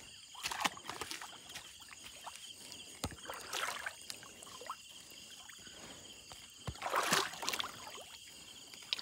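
A wet fishing net holding snakehead fish being handled: irregular splashes, drips and rustles of the net, loudest about seven seconds in, with two short dull thumps near three and near seven seconds.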